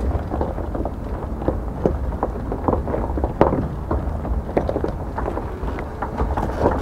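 Low rumble with many irregular knocks and clicks as a 2022 Toyota Tundra TRD Pro pickup rolls along a rough dirt trail. These are tyres going over stones and ruts and the truck jolting, picked up by a camera mounted on the truck's front.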